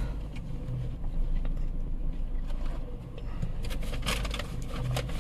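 Steady low hum of a car idling, heard inside its cabin, with crackling and rustling of a cardboard burger box and paper wrapper being handled while someone eats, busiest in the last second and a half.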